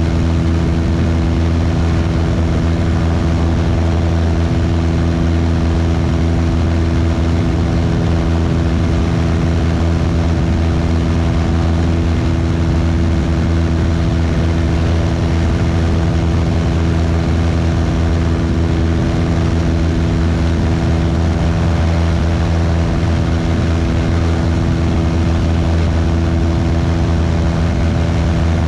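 Cessna 172's piston engine and propeller running steadily at climb power just after takeoff, an even drone with a constant rush of air noise over it.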